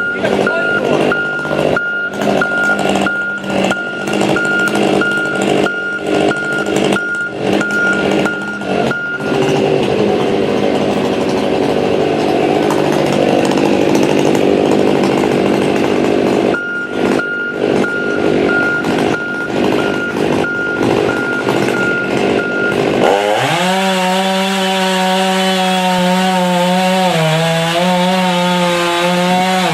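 Ported gas chainsaw running at high revs and cutting storm-downed wood, its engine note dipping slightly as the chain loads in the cut. A steady regular beeping sounds through the first part and again in the middle.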